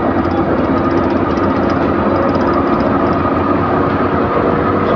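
Steady engine and road noise of a moving vehicle, an even rumble with a faint steady hum.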